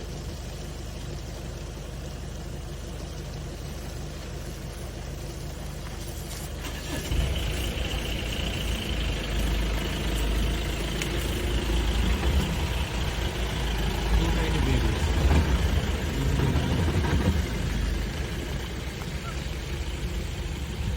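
A vehicle engine running steadily with a low rumble, growing louder about seven seconds in.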